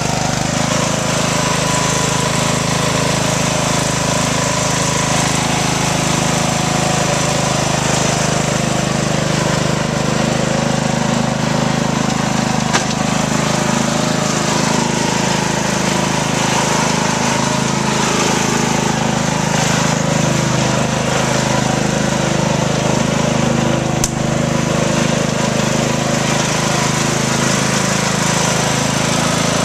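Riding lawnmower engine running steadily at an even speed, with a rattly, buzzing drone.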